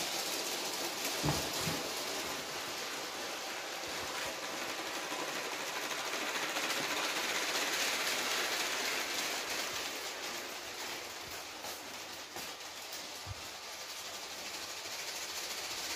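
Brick-built model ICE-T train running along plastic track: a steady rattling rush of its wheels with many small clicks over the rail joints, growing louder toward the middle as it comes closer and fading again near the end.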